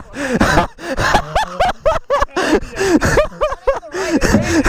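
Several people laughing and calling out excitedly, their voices overlapping in quick, high-pitched bursts with no clear words.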